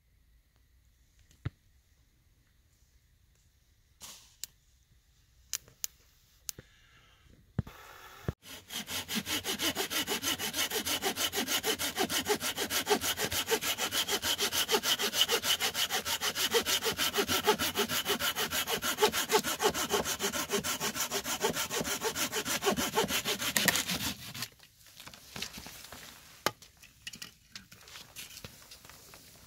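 Hand saw cutting through a wooden log in fast, even back-and-forth strokes, starting about eight seconds in and stopping abruptly about fifteen seconds later. Scattered light clicks and crunches before and after the sawing.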